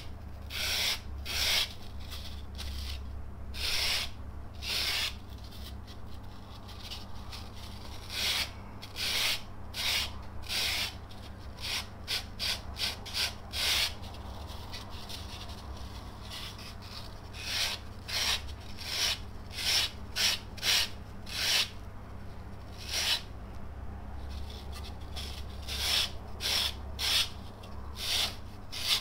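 Sandpaper rubbed lightly by hand over soft polyurethane foam to rough and smooth its surface. The short, raspy strokes come in runs with short pauses between them.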